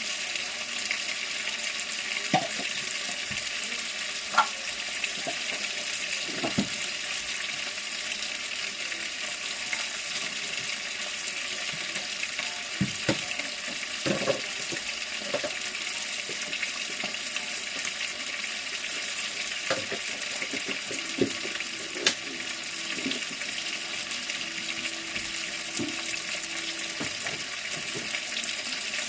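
Kitchen cooking sounds: a steady hiss, from food frying or water running, with scattered clinks and knocks of utensils and pots.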